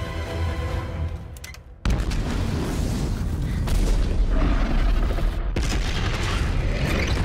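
Orchestral score dies away, then a sudden loud explosion about two seconds in goes on as a heavy blast with deep rumble, and a second explosion hits about five and a half seconds in: film explosion sound effects of a vehicle being blown up.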